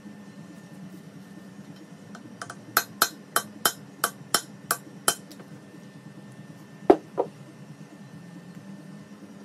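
A hammer tapping on metal: about eight quick ringing blows, roughly three a second, then a pause and two duller, heavier knocks near the end, the first of them the loudest.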